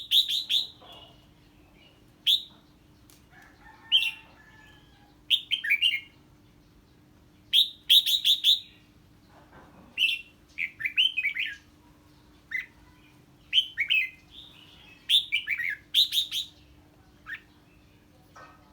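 Red-whiskered bulbul singing short, fast phrases of quick up-and-down notes, repeated every second or two. This is the excited chattering song (hót ché) that a bulbul gives on hearing an unfamiliar bird.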